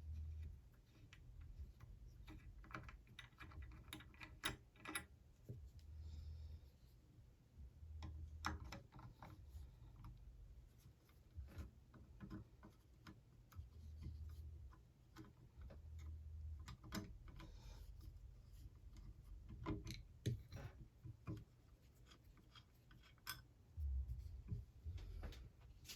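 Faint, scattered clicks and light taps of a rifle and its brass butt plate being handled and examined, with a few soft low thumps.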